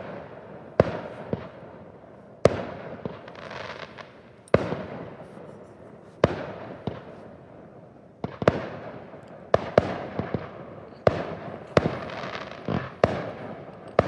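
Fireworks bursting: about a dozen sharp bangs, one every second or two at first and coming quicker in the second half, each trailing off in a rolling echo.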